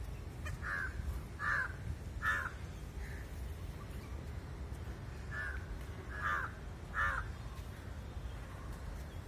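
A bird giving short harsh calls, three in quick succession about a second in, then three more near the middle, over a steady low rumble.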